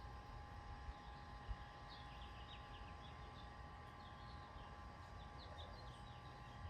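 Faint garden ambience: small birds twittering in clusters of short, quick high chirps over a steady low hum and background rumble. Two soft low thumps come about a second in.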